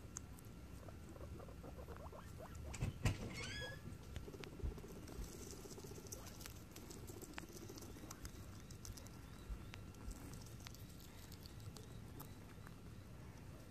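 Guinea pigs nibbling and chewing grass and basil leaves: fine, quick crackly munching clicks. About three seconds in there is a louder knock and a brief high chirping.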